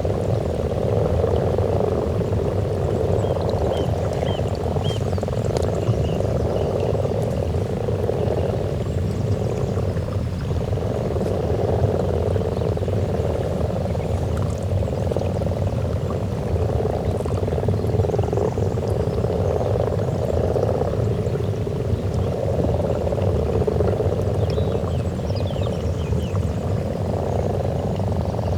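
A breeding chorus of many common frogs croaking together at a spawning pond: a dense, continuous low purring that swells and eases every few seconds.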